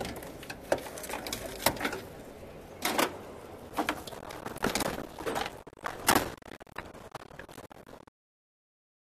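Scattered knocks and clunks as a Tesla Model Y cooling beam, carrying the AC compressor, condenser and accumulator, is handled and set into the car's front end, over steady background noise. The sound cuts to dead silence about a second before the end.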